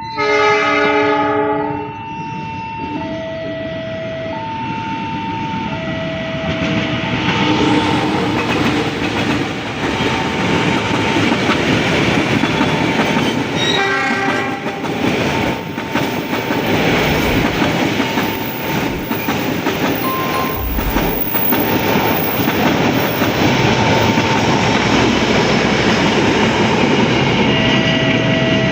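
A train sounds its horn and passes with a continuous rumble and clatter of wheels on rails, sounding the horn again about halfway through. A level-crossing warning alarm alternates between two tones, plainest before the train arrives and again near the end.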